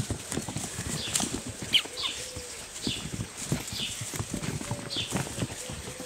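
Peruvian hairless puppies scampering and tussling on wooden and woven mats: a quick, irregular pattering and knocking of paws, with a few short high squeaks.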